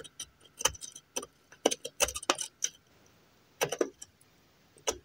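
Scattered clicks and knocks from handling a corded electric hedge trimmer, with no motor hum between them: the trimmer no longer runs at all.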